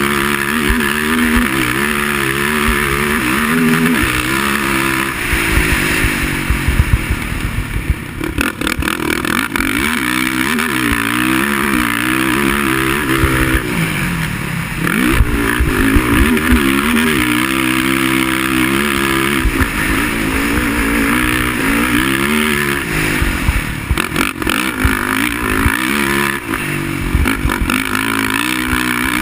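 Racing quad (ATV) engine revving hard and easing off again and again, its pitch rising and falling, with a few short drops in throttle and scattered clattering knocks.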